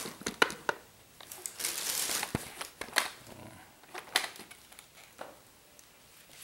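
Handling noise from a large papier-mâché puppet being moved about: cloth rustling, with a rustling stretch in the middle and several sharp clicks and knocks scattered through.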